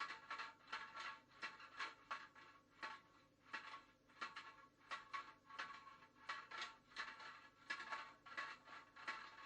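Faint, irregular knocking and clicking, a few hits a second, as a GoPro in its housing tumbles inside a washing machine drum.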